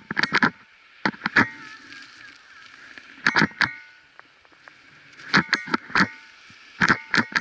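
Skis scraping and chattering on hard-packed snow in rattly bursts at each turn, about every one to two seconds, with a steady hiss of the skis gliding between.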